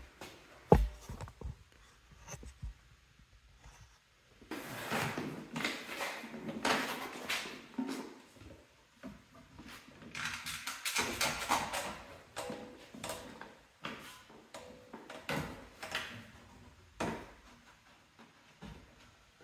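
Handling and workshop noises: a couple of sharp knocks near the start, then two long stretches of scraping and rubbing, with scattered clicks and knocks toward the end.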